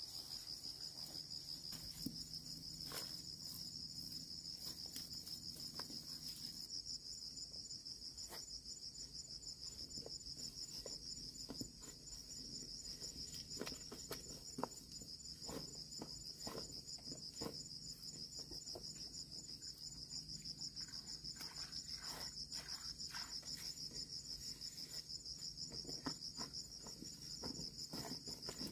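Insects trilling in a steady, rapidly pulsing high drone, with scattered soft rustles and snaps of peanut plants being pulled up by hand.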